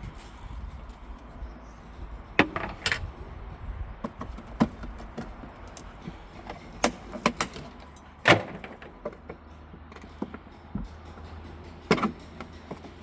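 Irregular knocks and metallic clinks of hand tools and panels being handled while stripping a car, the loudest about eight seconds in, over a low steady hum.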